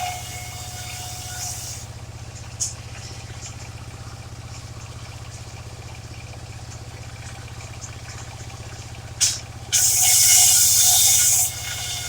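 Engine of a mobile circular sawmill running steadily with a low pulsing hum. A short loud hissing burst comes about nine seconds in, and a longer loud hiss follows near the end.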